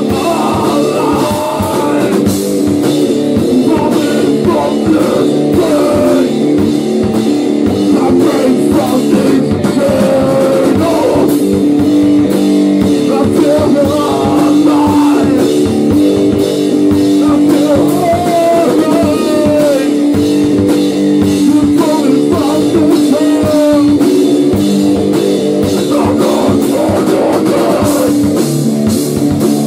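Loud rock music: a band playing electric guitar over a drum kit, with steady rhythmic drum hits and sustained guitar chords.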